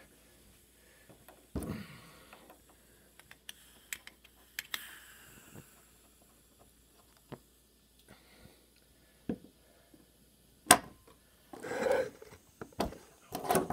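Scattered handling noises in a quiet room: short clicks, knocks and brief rustles, with one sharp click about two-thirds of the way through, the loudest sound, and a cluster of rustling and knocks near the end.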